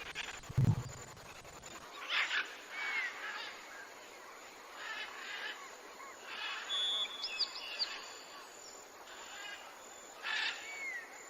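Birds calling over a faint outdoor ambience: scattered short chirps and high falling whistles that come every second or two. There is a single low, deep grunt near the start.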